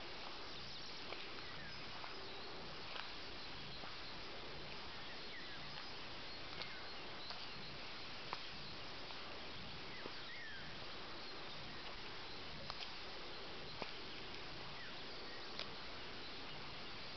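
Quiet rural outdoor ambience: a steady faint hiss with scattered short, high chirps from small animals, and one brief curved call about ten seconds in.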